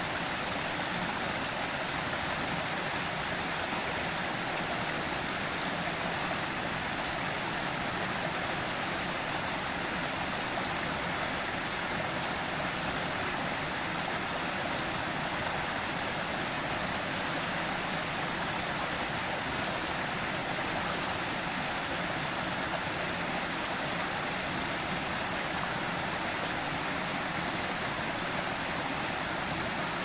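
Small rocky forest stream running steadily, water splashing down short cascades between boulders.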